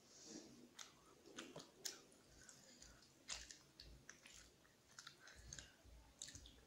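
Quiet close-miked eating sounds: chewing, with scattered sharp wet clicks as fingers work rice and chicken curry on a steel plate.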